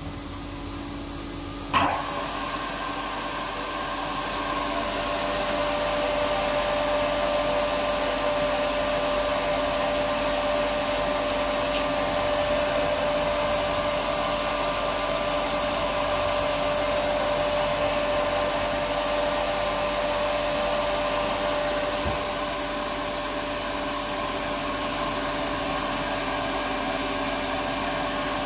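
Studer S25 CNC cylindrical grinding machine running: a steady motor and spindle whir with a hiss and a held hum. A sharp click comes about two seconds in, after which the whir grows louder over a few seconds and then holds steady, easing off slightly after about 22 seconds.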